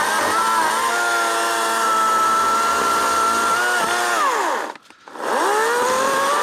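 EGO 14-inch battery-powered chainsaw's electric motor whining at full speed with a slight dip in pitch now and then. It winds down and stops about two-thirds of the way through, then spins up again with a rising whine when the trigger is squeezed.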